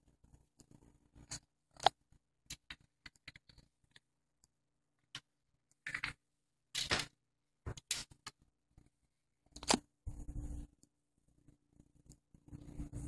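Handling noise on a Dual 1225 turntable: irregular clicks, taps and scrapes as its tonearm and controls are worked by hand. A low steady hum comes in about ten seconds in and grows near the end.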